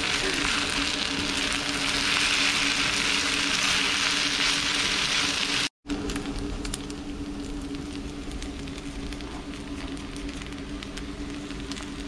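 Fried rice sizzling on a hot griddle pan over a portable gas burner as wooden spatulas stir it. After a sudden break about halfway through, the sizzle goes quieter, with scattered light crackles and ticks over a steady low hum.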